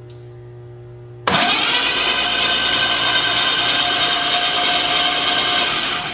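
Starter cranking the hydrolocked Mustang engine with all its spark plugs out, to clear water from the cylinders. It kicks in suddenly about a second in and runs steadily for about five seconds: a steady whine over a loud rush of air blowing out the open plug holes, the engine spinning freely.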